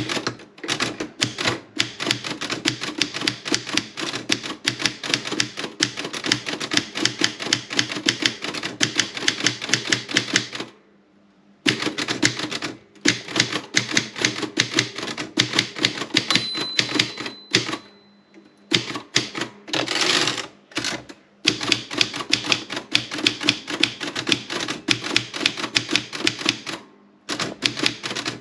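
Erika 30 manual typewriter being typed on in quick runs of key strikes, several a second, with short pauses between runs. Near the middle a faint ring is heard, as of the margin bell, and a couple of seconds later a longer rattle of the carriage being returned.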